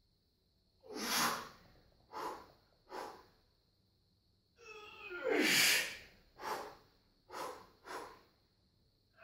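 Heavy, forceful breathing of a weightlifter holding a loaded barbell at the bottom of a squat. Sharp breaths come about a second apart early on, then a long strained breath falls in pitch around the middle, followed by a run of short quick breaths.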